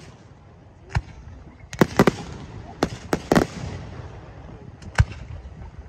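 Aerial firework shells bursting overhead: about seven sharp bangs, bunched between about two and three and a half seconds in, with one more near the end.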